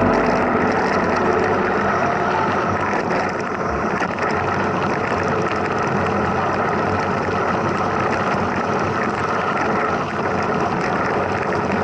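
Steady rushing noise of a mountain bike being ridden: tyres rolling on the trail and wind on the microphone.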